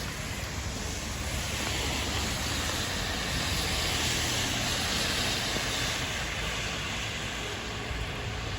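Steady noise of wind and rain in a typhoon, with a vehicle's tyres hissing on the wet road, swelling and fading over the middle few seconds as it passes.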